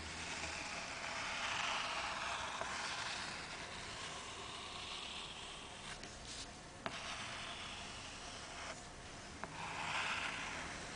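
Soapstone pencil scratching across a black-painted board as circles are drawn: a soft hiss that swells with each stroke, with a couple of sharp ticks partway through.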